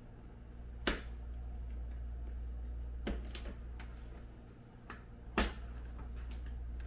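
Sharp plastic clicks as the edge of a Snoo bassinet's mesh liner is pressed by hand into the bassinet's plastic rim and snaps into place, about five clicks with the loudest about a second in and about five and a half seconds in. A steady low hum runs underneath.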